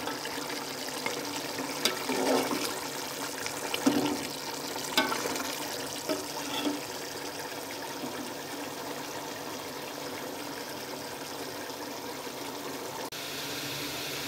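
Mutton and onions in thickening broth bubbling steadily in a metal pot as the water cooks off. A metal slotted spoon scrapes and knocks against the pot several times in the first seven seconds.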